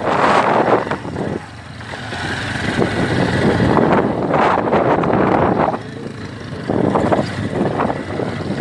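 Motorcycle riding along a sandy dirt track, its engine mixed with a loud rush of wind on the microphone. The rush rises and falls, dropping off briefly twice.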